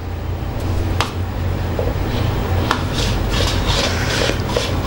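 Metal palette knife spreading frosting round the sides of a cake on a steel plate turned by hand. There are a couple of sharp clinks of metal on metal, then repeated soft scraping strokes from about two seconds in, over a steady low hum.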